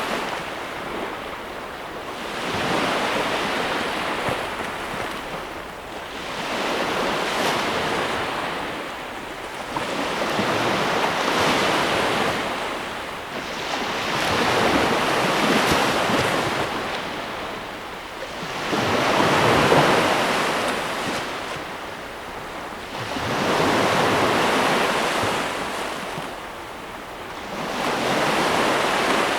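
Ocean waves breaking and washing in, a rushing swell that rises and falls about every four seconds.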